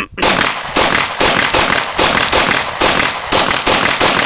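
Grand Power K100 pistol firing a steady rapid string of shots, about ten in a row at roughly two to three a second.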